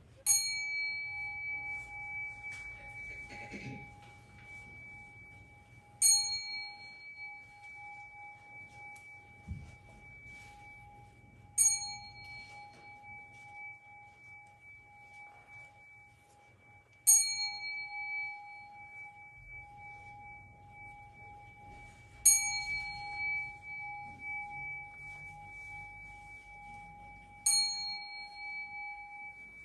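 A bell struck six times at an even pace, about every five and a half seconds. Each strike rings on into the next, so its tone never dies away.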